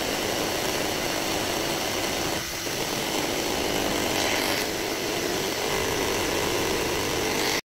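Electric hand mixer running steadily, its beaters whipping sponge-cake batter in a bowl to stiff peaks. It cuts off abruptly near the end.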